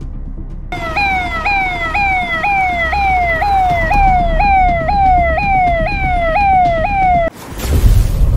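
Police siren sounding in quick repeated falling sweeps, about two a second, starting about a second in and cutting off suddenly near the end. A loud deep whoosh and boom follows.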